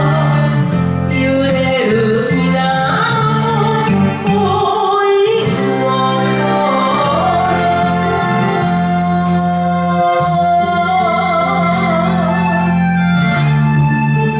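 A woman sings an enka ballad over a karaoke backing track, drawing out the verse's closing line in long held notes with a wavering vibrato.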